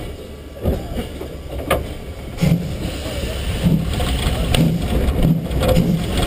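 Slovenian Railways 33-class 2-10-0 steam locomotive starting to move, with two sharp metallic clanks in the first two seconds, then exhaust chuffs setting in and growing louder.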